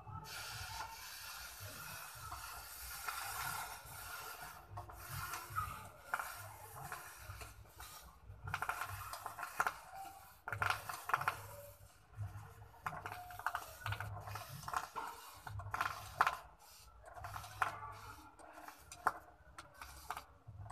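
Hot metal casting mould sizzling in a puddle of water for the first four seconds or so, then metal tongs scraping and knocking the mould about on wet concrete in short, irregular strokes.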